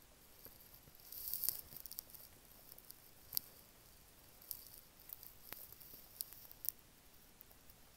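Faint rustling and crinkling of household items being handled about a second in, followed by a few sharp light clicks and taps spread through the rest.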